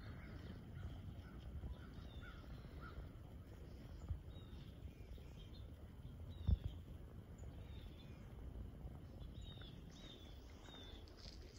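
Small birds calling with many short, falling chirps over a steady low rumble. A dull thump comes about six and a half seconds in, with a lighter one a little earlier.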